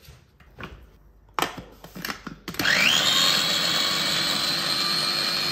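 A few handling knocks, then a small electric food chopper's motor starts about halfway in, spinning up with a rising whine and running steadily as it blends roasted tomatoes and garlic.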